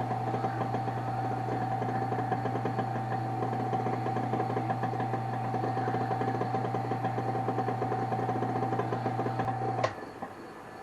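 Wood lathe running steadily, a hum with a steady whine over it, as a freshly applied oil-and-shellac friction polish is worked on a spinning wooden peg; it stops abruptly near the end.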